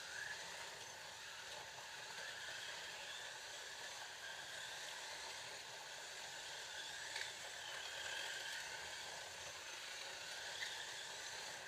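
Scalextric slot cars racing round the track, their small electric motors giving a steady whine that rises and falls in pitch as they speed up and slow down. Two sharp clicks stand out, about seven and ten and a half seconds in.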